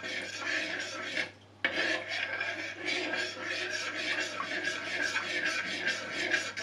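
A utensil stirring yeast into warm sugar water in a bowl, scraping against the bowl in rapid, regular strokes, with a brief pause about a second in.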